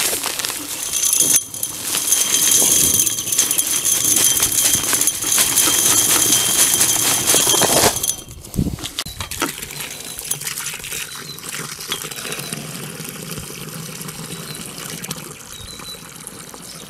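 Dry Quikrete concrete mix pouring out of its paper bag into a post hole, a loud steady hiss that stops about eight seconds in. Then a garden hose runs water into the hole, quieter and even.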